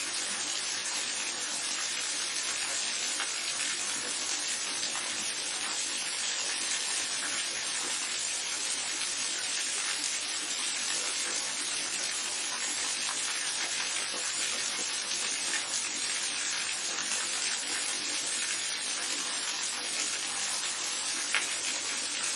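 Steady rushing and splashing of a waterfall and babbling brook, an even hiss of water, with a single faint sharp tick near the end.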